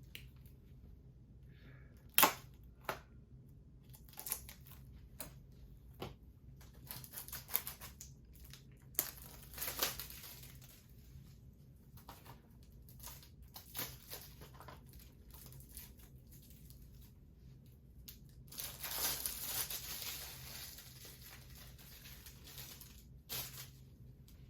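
Plastic shrink wrap being torn and crumpled off a Blu-ray case, with scattered clicks and taps from handling the case; a sharp click about 2 s in is the loudest sound, and the crackling comes in two main spells.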